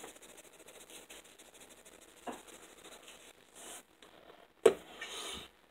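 Seasoned salt shaken from a shaker, the grains pattering faintly in quick fine ticks onto raw chicken wings in a foam tray for about three and a half seconds. A single sharp click comes near the end.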